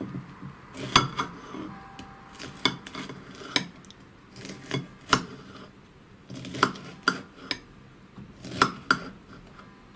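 Fennel pieces going into a glass jar: about a dozen irregular clinks and knocks, some with a brief glassy ring.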